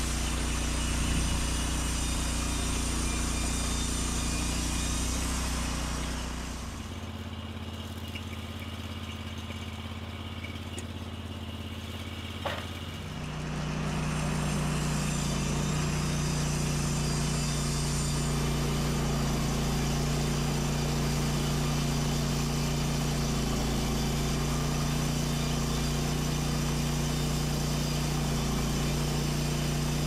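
EZ Boardwalk 40 bandsaw mill running steadily, its engine driving the band blade through a softwood log. Between about seven and thirteen seconds in it goes quieter and lower, with a single sharp click, then returns to full level.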